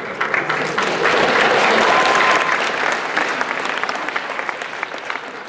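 Audience clapping in a large hall, loudest in the first couple of seconds and dying down toward the end.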